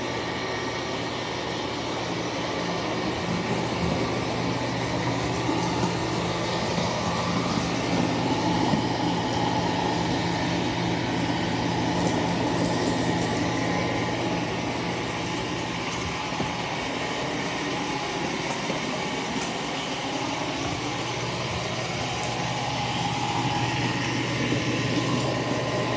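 eufy C28 robot vacuum and mop combo running: its suction motor and spinning roller mop make a steady whir with a low hum and a higher whine, swelling and easing a little in loudness as the robot moves about the floor.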